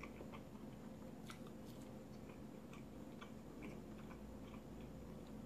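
Faint closed-mouth chewing: a person working a mouthful of food, with small, irregular wet mouth clicks over a low steady room hum.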